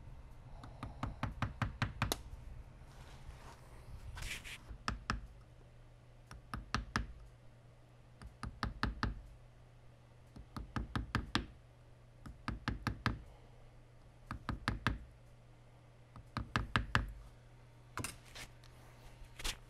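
Hammer tapping a straight wood chisel to cut an inlet into a walnut grip blank held in a vise: quick runs of several sharp taps, about every two seconds.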